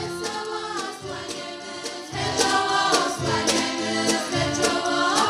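Choral music with a steady beat, a choir singing over light percussion; it grows louder about two seconds in.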